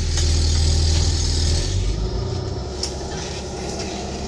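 Cab-interior sound of a Peterbilt 337 medium-duty diesel truck driving on the road: the engine runs as a steady low drone under road and tyre noise. About two seconds in the engine drone weakens and the overall level eases a little.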